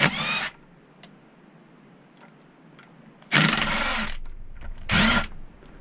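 Power ratchet on a 10mm bolt of a Land Rover R380 gearbox, running in three short whirring bursts as the bolt is undone.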